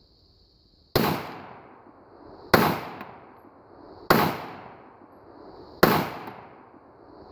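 Four gunshots fired at a slow, steady pace, about a second and a half apart, each followed by a short echoing tail.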